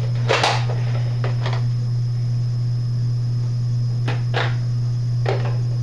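A few short plastic clicks and rustles from a Nerf Elite Trilogy blaster being handled as a shell is loaded into it, over a steady low hum.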